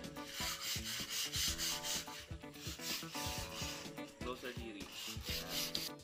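Sandpaper rubbing over a plywood tabletop by hand, in quick back-and-forth strokes to smooth the surface.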